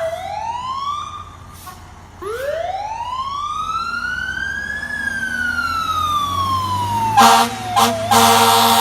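Fire truck siren winding up in a short rise, then a longer rise that slowly falls away. Heavy air horn blasts come in near the end, two short blasts and then a long one, the loudest sound.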